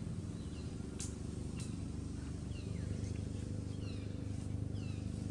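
Outdoor forest ambience: a steady low hum underneath, with short high chirps that fall in pitch, repeating about once a second, and two sharp clicks about a second in.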